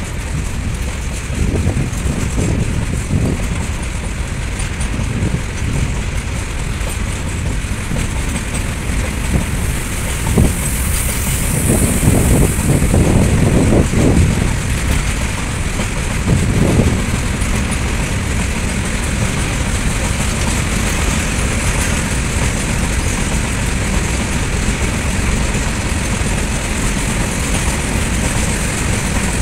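Freight train of covered goods wagons rolling past on steel rails: a steady rumble of wheels with recurring bursts of clatter over the rail joints, loudest a little before the middle.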